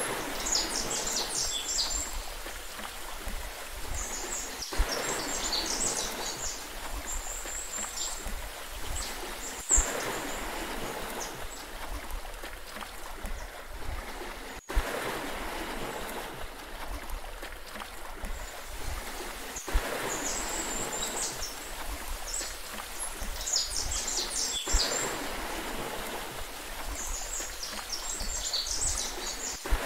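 Sea water washing and lapping steadily, with short clusters of high bird chirps now and then. A sharp click sounds every five seconds.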